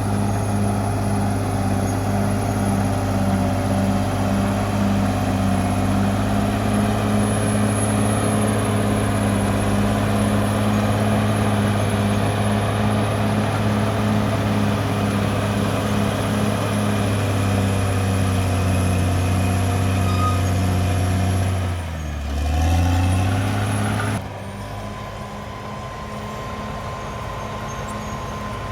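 Caterpillar D6R XL bulldozer's diesel engine running steadily under load. About 22 seconds in the engine speed dips and comes back up, and soon after the sound cuts abruptly to a quieter, steady engine.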